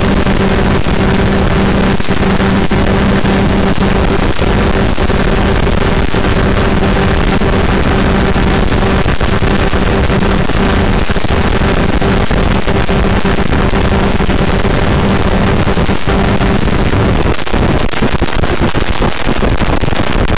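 Kawasaki KRR150's single-cylinder two-stroke engine running steadily near the top of its rev range at full speed, under heavy wind rush on the microphone. About 17 seconds in, its steady note fades away.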